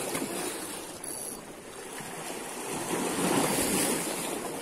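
Waves washing against a rock breakwater, a steady wash of water noise that swells about three seconds in.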